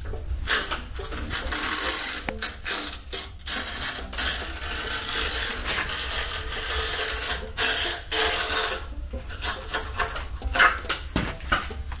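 Sharp steel chisel scraping along an aluminium sign, peeling off its reflective sheeting in repeated scratchy strokes with short breaks between them.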